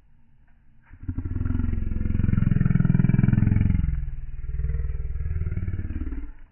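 A deep, pulsing lion growl that starts about a second in, swells in the middle and stops near the end.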